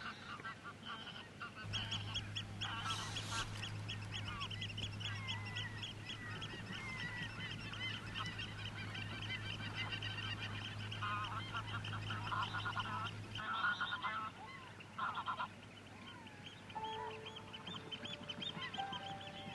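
A flock of greylag geese calling, with many short honks overlapping and repeating throughout.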